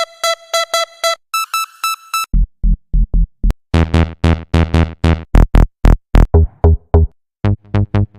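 Hard-trance presets for the Serum software synthesizer being auditioned one after another: short, evenly repeated synth notes whose sound changes several times. A bright, high pluck gives way after about two seconds to heavy, bass-laden stabs, and after a brief break near the end another preset begins.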